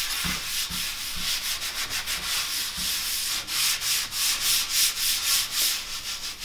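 A foam sponge loaded with baking-soda paste scrubbing a smooth cabinet door, rasping in quick back-and-forth strokes that grow louder in the second half.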